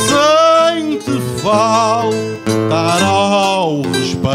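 Azorean viola da terra and acoustic guitar playing a cantoria accompaniment, with a singer's drawn-out, wavering vocal line over it in three phrases.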